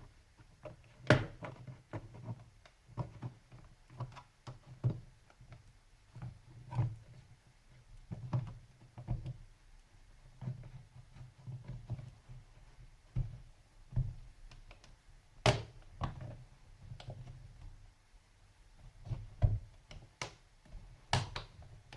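Plastic case of a Samsung NP305V laptop being pried apart: irregular clicks and light knocks as the small snap latches around the top cover's edge are worked loose, with dull thuds from the chassis being handled. The sharpest clicks come about a second in, around fifteen seconds in and near the end.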